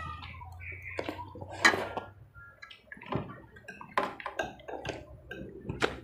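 Close-up eating sounds of spaghetti: wet slurping and chewing, with irregular clicks of metal forks against a plate. The sharpest click comes about a second and a half in.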